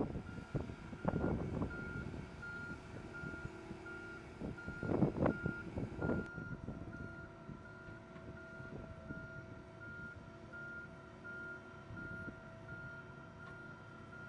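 Warning beeper on a self-propelled gantry transporter, a single-pitched electronic beep repeating steadily, a little more than once a second, as the carrier moves. Gusts of low rumbling noise sit under it, loudest about five seconds in.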